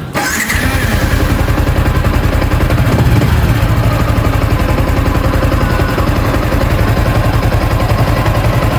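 Yamaha Sniper 155 motorcycle's single-cylinder engine starting about half a second in, then running steadily at idle.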